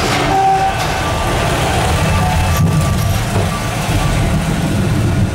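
Steady low rumble of a passenger cabin in motion, heard from inside as it pulls out of its station. Faint steady tones come and go above the rumble.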